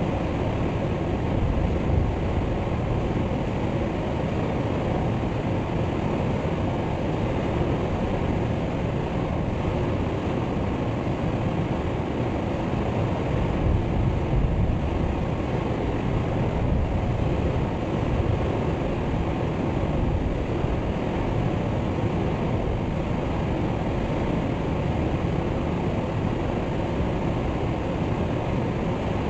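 Waterfall: water pouring and crashing into a pool as a steady, deep, unbroken rush.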